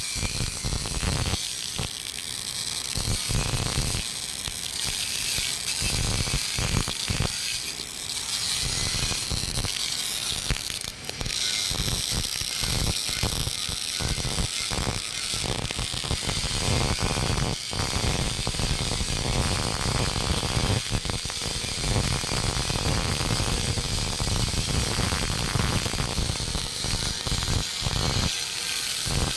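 MIG (GMAW) welding arc crackling and buzzing steadily during an open-root pass on pipe, the rapid irregular crackle of short-circuit transfer at low voltage (about 105 A, 15.7 V).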